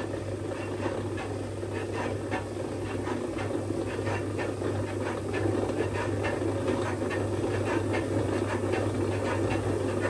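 Dyson contrarotating washing machine running on a test spin while stuck in contrarotate mode: a steady motor hum and a dense churning from the two drums, with faint regular clicks about twice a second. The motor is driving the pulley much faster than normal so that both drums turn against each other, a fault that followed an F18 error.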